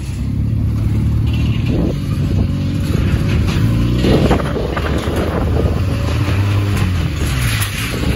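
Motorcycle engine running at low speed, its pitch rising and falling a few times with the throttle.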